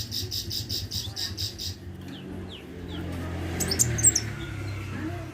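A small songbird sold as a 'kolibri' (a sunbird) singing: a fast run of high chirps, about seven a second, for nearly two seconds, then scattered short sweeping notes and a few very high squeaks about four seconds in. A low steady hum lies underneath.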